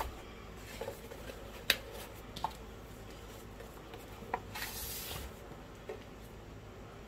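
Light handling of a paper craft box and ribbon: a few soft taps and clicks as the box is closed up and set down, and a brief swish of ribbon or paper about four and a half seconds in.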